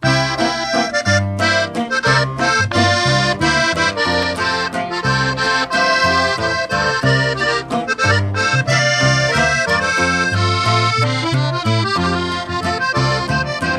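Norteño music: a button accordion plays the melody of a song's instrumental introduction over a steady bass line.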